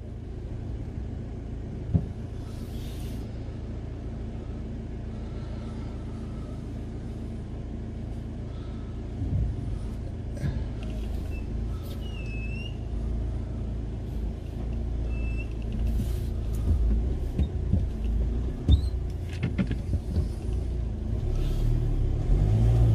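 Car engine idling steadily, heard from inside the cabin as a low, even rumble, with a couple of light knocks.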